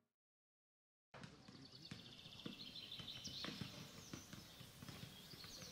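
Dead silence for about a second, then faint outdoor ambience: birds chirping and footsteps on a paved path coming closer.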